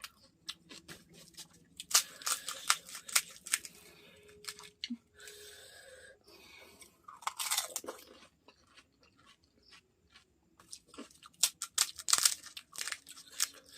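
Close-up chewing and crunching of golgappa: crisp fried puri shells breaking in the mouth. There are two bursts of sharp crunching, about two seconds in and again near the end, with quieter chewing between them.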